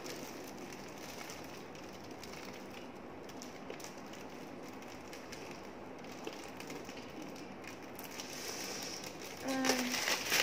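Fingernails picking and scratching at tightly stuck sticky tape on a toy box, with small ticks and rustles, then plastic wrapping crinkling more loudly near the end.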